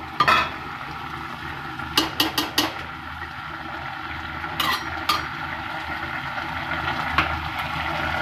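Metal spoon clinking and scraping against the rim and sides of an aluminium pressure cooker as soaked chana dal is spread over chopped vegetables. A quick cluster of clinks comes about two seconds in and a few single knocks follow later, over a steady low background hum.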